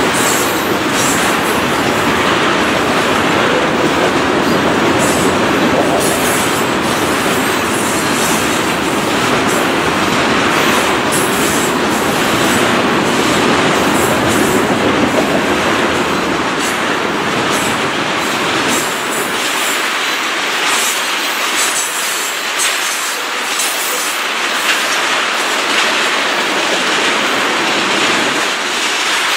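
Ethanol tank cars of a freight train rolling past: steel wheels running on the rails with a steady rush and repeated clacks as wheelsets cross rail joints. The deepest part of the sound drops away about two-thirds of the way through.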